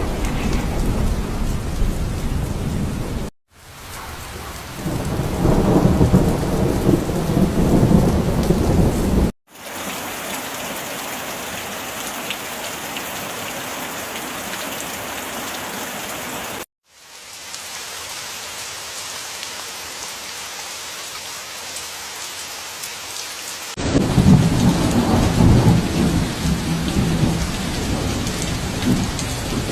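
Heavy rain falling steadily, with long deep rolls of thunder near the start, again a few seconds in and toward the end, and plain rain hiss between them. The sound breaks off abruptly several times where separate recordings are spliced together.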